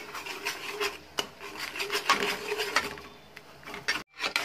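Metal spoon stirring a thick peanut-powder and sugar-syrup mixture, scraping against the metal pan in irregular strokes. The sound drops out briefly near the end.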